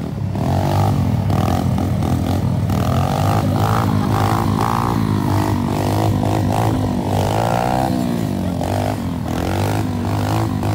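Small pit bike engine running hard during a wheelie, its revs rising and falling again and again as the throttle is worked.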